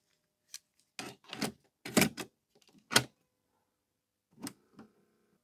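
Cassette deck transport keys on a Teac MX-D10 mini hi-fi being pressed: a run of sharp mechanical clicks and clunks, the loudest about three seconds in.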